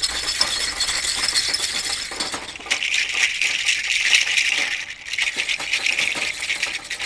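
Handheld shakers being shaken by hand, giving a continuous busy rattle; the rattle gets louder and fuller a little under three seconds in.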